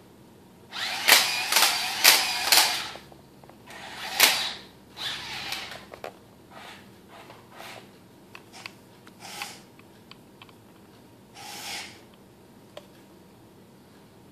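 Combat Creatures Attacknid Stryder toy robot walking in starts and stops: its small electric motor and gearbox whir, and its plastic legs clatter on the tile floor. The longest, loudest run starts about a second in, a sharp click follows, and then come shorter bursts.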